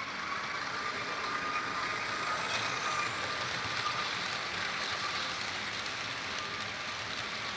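TYCO HO-scale model freight train running past on sectional track: the Alco C-430 locomotive's motor and the freight cars' wheels make a steady rolling rush with a faint high whine.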